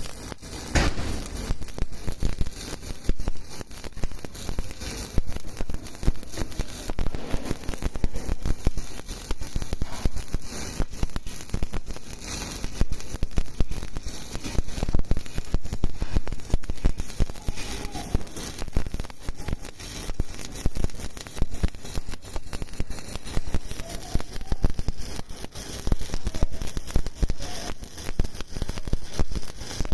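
Stick (SMAW) welding arc burning with a 7018 electrode: a continuous, irregular crackle.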